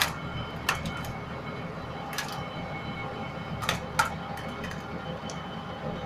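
Old tandem road roller's engine running steadily under load as the machine climbs steel loading ramps, with a handful of sharp metallic clicks and clanks from the ramps under the steel drums, the loudest right at the start.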